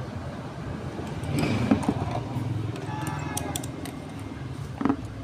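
Steady low engine rumble of background traffic, swelling about a second and a half in, with a couple of short knocks, the last near the end.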